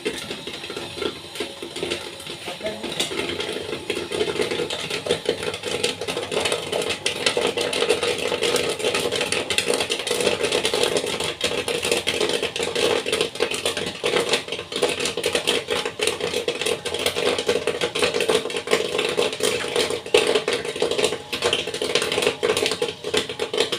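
Popcorn machine kettle popping a batch of kernels: a dense, rapid crackle of pops that thickens and grows louder from about four seconds in, over a steady hum.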